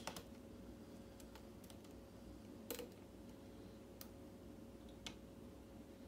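Faint, scattered metallic clicks of a hook pick and tension wrench working the pin stacks of a Kwikset mortise lock cylinder. There are about seven irregular clicks, the loudest near the middle, over a faint steady hum.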